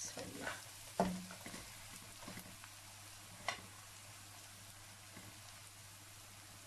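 Sliced onions frying in hot oil in a pan, a steady sizzle as they turn golden brown. A spatula scrapes and knocks against the pan a few times in the first few seconds, the sharpest knock about a second in.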